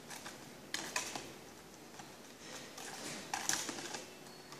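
A spatula scraping and clinking against a small plastic tub while stirring thick discharge white ink paste mixed with its discharge agent. There are short clatters about a second in and again past three seconds, with quieter scraping between.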